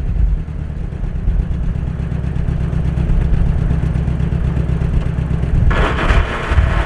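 Chevy 350 V8 of a 1973 Chevy C30 one-ton truck running with a steady low rumble, just after it is judged to not sound good. About six seconds in a harsh hiss or rushing noise joins it for the last second or so.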